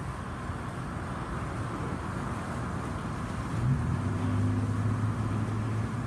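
Water rushing steadily out of an overflowing manhole. A little over halfway through, a low steady engine hum from a vehicle joins in.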